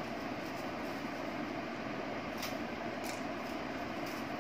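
Steady rushing noise of heavy rain, heard muffled from inside the house.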